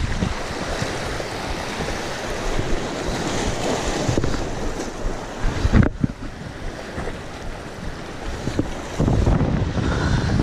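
Waves washing and foaming over rocks, with wind buffeting the microphone. There is a brief bump a little before six seconds in, and the noise grows louder near the end.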